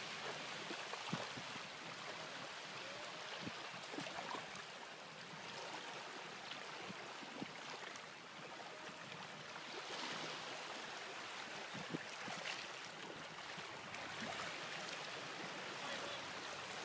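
Small waves washing and lapping in shallow sea water, with a few faint splashes from bare feet wading through ankle-deep water.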